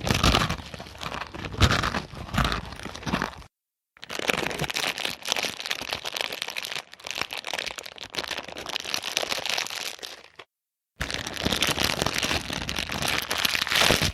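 Three separate sound effects of dense crackling and cracking, each starting abruptly and cutting off into silence; the first has several loud sharp cracks, the second and third are a steadier crackle.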